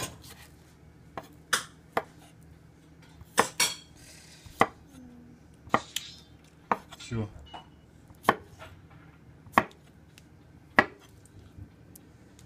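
Kitchen knife chopping boiled red-cap boletus mushrooms on a wooden cutting board: sharp, separate knocks of the blade hitting the board, about one a second at an uneven pace.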